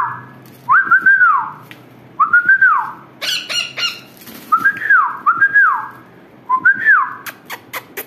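About six short whistled notes, each rising and then falling, and one harsh squawk from a young Indian ringneck parakeet about three seconds in. A quick run of sharp clicks follows near the end.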